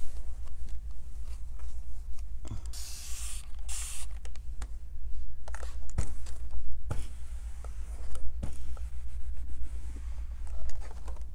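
Quilting fabric being handled as a seam sewn with water-soluble thread is pulled out, with a brief hiss about three seconds in and a few light clicks later.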